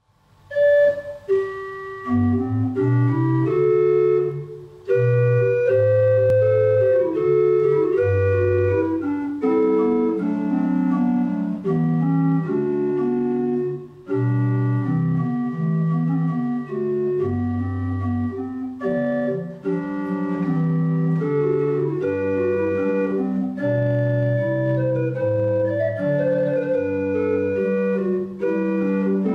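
Church pipe organ played on its manuals: sustained chords over a moving bass line, in phrases with short breaks between them.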